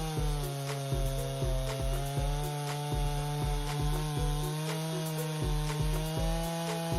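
Chainsaw engine running steadily at high speed, over background music with a steady beat.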